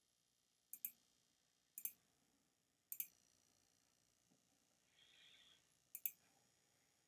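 Computer mouse button clicking four times against near silence, each click a quick pair of ticks from press and release. There is a longer gap before the last click, and a faint soft rustle comes shortly before it.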